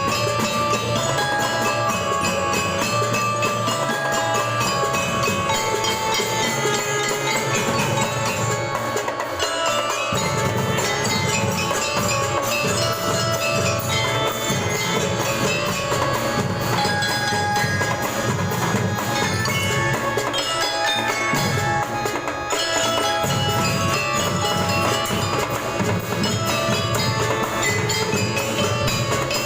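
A school band playing a tune without pause: ringing mallet percussion carries the melody over drums.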